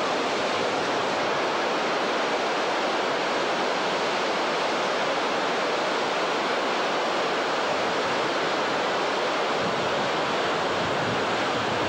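Steady rushing roar of a large waterfall, an even noise that does not change.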